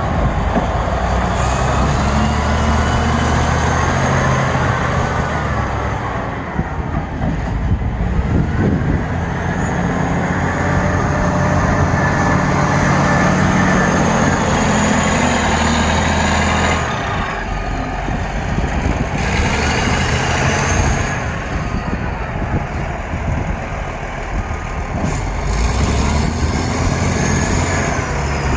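Caterpillar 980B wheel loader's diesel engine working, its pitch rising and falling with throttle changes as it pushes snow, with a whine that swells and fades several times.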